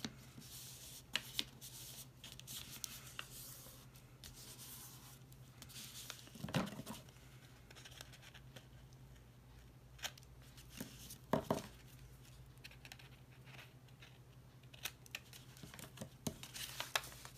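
Paper being handled at a craft table: scattered rustles, light taps and clicks from sheets of paper and scissors, over a faint steady low hum.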